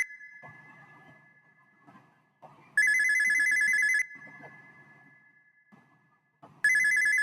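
Electronic phone ringtone of the old trilling-ring kind: a fast warble between two close high pitches, sounding in rings of just over a second with gaps of about two and a half seconds, twice in full.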